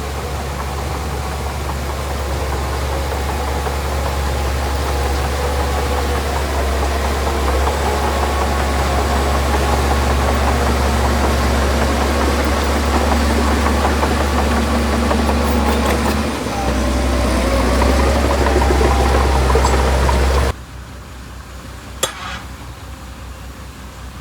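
Heavy diesel engine of earthmoving machinery running steadily with a deep rumble. About twenty seconds in it cuts off abruptly to a quieter background, where two short sharp knocks follow.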